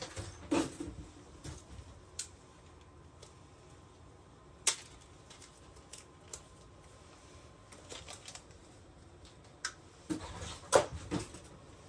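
Small packets of screws being handled and opened: scattered light clicks and crinkling, a sharp click about five seconds in, and a cluster of louder knocks and clicks near the end.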